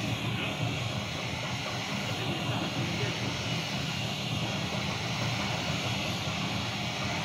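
18-inch compact two-roll rubber mixing mill running: a steady mechanical drone from its drive and turning rolls.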